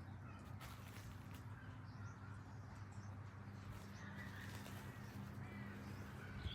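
Faint bird calls, scattered and short, over a steady low hum, with a few soft clicks.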